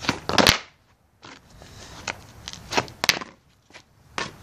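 Skateboard knocking and clacking on a concrete patio during flip-trick attempts: a cluster of loud knocks at the start, then a softer rolling noise with two sharp clacks about three seconds in.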